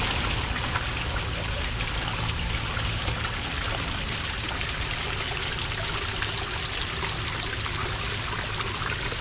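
Small stream of water trickling and splashing down a short rocky step in a steady run.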